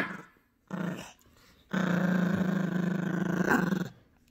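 Yorkshire terrier puppy growling while tugging on a plush toy in a tug-of-war: a short growl about a second in, then one long, steady growl of about two seconds.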